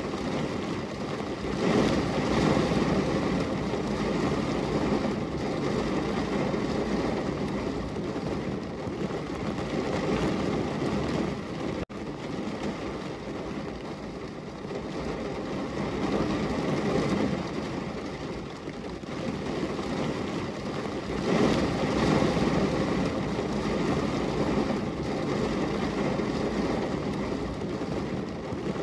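Heavy rain pouring on a window, a steady wash of noise that swells and eases every several seconds, with a momentary break about 12 seconds in.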